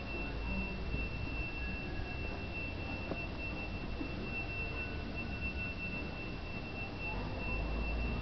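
A steady high-pitched whine held on one pitch, over a low rumble.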